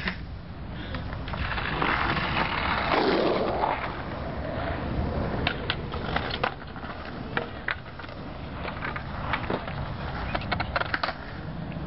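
Skateboard wheels rolling on concrete pavement, followed by a run of sharp clacks and knocks as the board pops onto a park bench, slides along it and lands.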